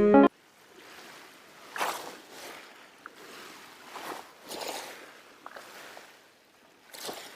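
Background music cuts off about a third of a second in, leaving a soft rushing noise that swells and fades every second or so, like water or waves.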